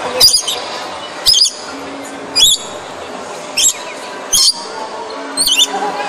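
A lory parrot gives six shrill, wavering screeches, about one a second.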